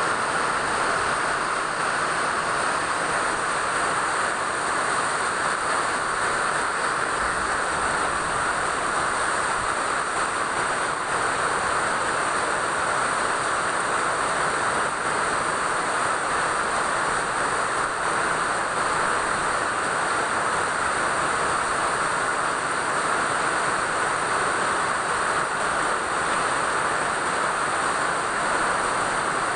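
Steady rain falling, an even hiss that holds the same level throughout without breaks or single drops standing out.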